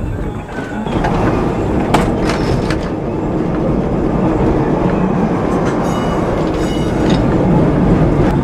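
Lisbon Carris tram running along the rails, heard from the driver's cab: a steady rumble of wheels and motor with a few sharp clicks early on. A brief high ringing squeal comes about six to seven seconds in.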